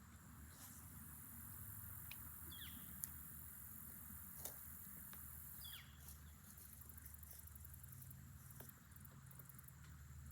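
Faint outdoor ambience near silence: insects chirring steadily, with a few soft clicks and two short chirps.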